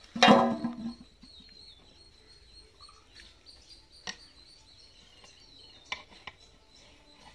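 Birds chirping over a steady high insect drone, with a brief loud pitched call just after the start. Later come a few sharp clicks of a metal ladle against the aluminium biryani pot.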